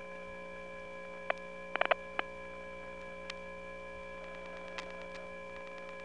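Steady hum on a 1979 interoffice telephone trunk into a step-by-step exchange: several hum tones sounding together, with scattered sharp clicks, including a quick run of four about two seconds in. The hum comes from unbalanced power and oscillating repeaters on the trunk, and it has a metallic, organic sound.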